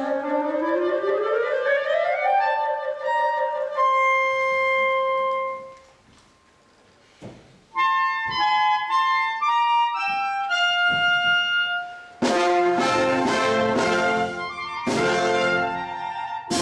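Two solo clarinets with a concert wind band. A clarinet glides upward over a held note, then holds a high note. After a pause of about two seconds come quick solo runs, and about twelve seconds in the full band enters with loud chords.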